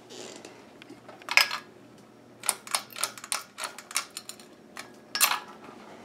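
Sharp, irregular clicks and taps, about a dozen in quick succession in the middle and a louder one near the end, over the faint low hum of a running ceiling fan.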